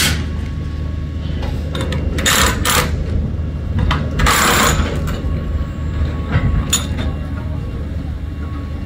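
Work noise from a fairground ride being dismantled: a steady low machine hum, with a few short noisy bursts about two, four and seven seconds in.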